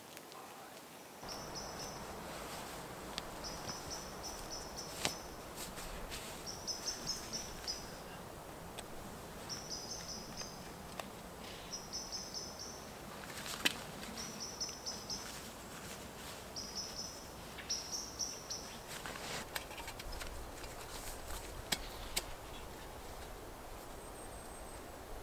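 A small songbird repeats a short phrase of quick high notes about every two seconds, over a steady forest hiss. Scattered clicks and rustles come from gear being handled close by.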